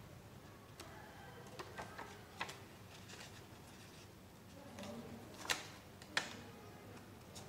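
Sheet of paper being handled, folded and creased by hand: faint scattered crinkles and taps, with two sharper ones a little past the middle.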